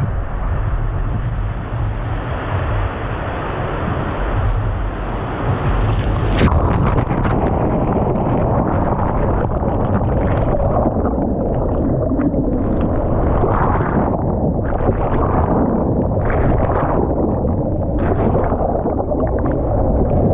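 Wind buffeting the microphone over a loud, steady rushing noise, which grows louder and gustier about six seconds in.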